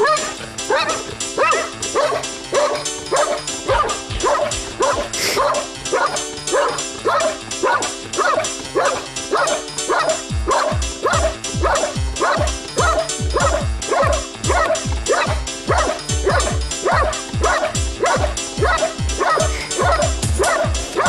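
Belgian Malinois barking steadily and rapidly, about two to three barks a second, at a decoy hidden in a blind: the bark-and-hold of protection training.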